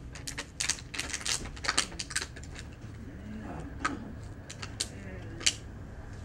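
Irregular sharp taps and clicks of hands striking and brushing together while signing in sign language, thickest in the first two seconds, with one louder smack near the end.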